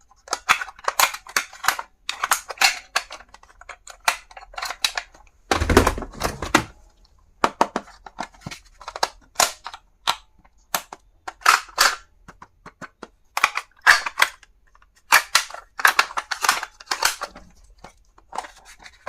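Stationery items and their packaging being handled: an irregular run of sharp clicks, snaps and rattles, with a heavier knock about six seconds in.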